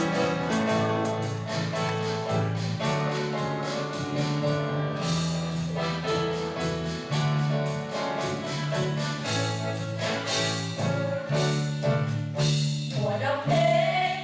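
A quartet of four women singing a church song together, accompanied by piano or keyboard.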